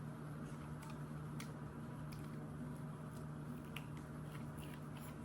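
Steady low hum of room tone with a few faint, short clicks scattered through it.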